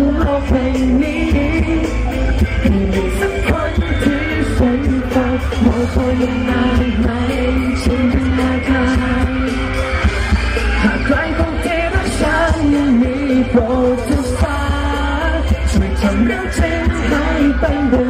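Live pop song played through a concert PA: a male singer's voice carrying the melody over a band, with heavy, boomy bass.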